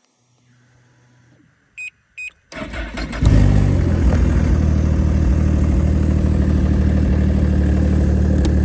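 Ski-Doo Blizzard snowmobile's Rotax 900 ACE three-cylinder four-stroke engine being started: two short beeps about two seconds in, a brief crank, then the engine catches and settles into a steady idle.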